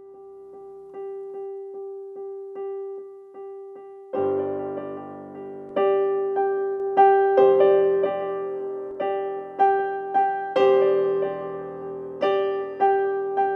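Piano music: a single note repeated at a steady pulse, joined about four seconds in by fuller chords and low bass notes, and growing louder.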